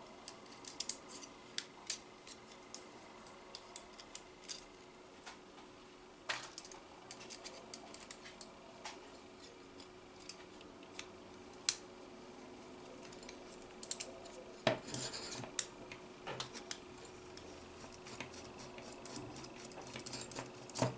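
Scattered light metallic clicks and clinks of blue aluminium robot-kit beams and M4 screws being handled, and a screw being turned in with a small hand screwdriver, with a short cluster of clatter about fifteen seconds in.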